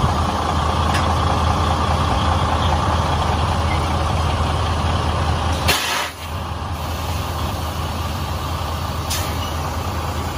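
Semi-truck tractor's diesel engine idling, with a short sharp hiss of compressed air released from its air system about six seconds in: the truck being air-braked and its air dropped during uncoupling. A faint click comes near the end.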